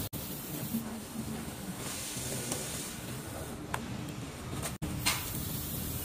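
Faint rustling and light knocks of a plastic-wrapped beam smoke detector being lifted out of its cardboard box and foam packing, over a steady hiss. The sound drops out for an instant twice.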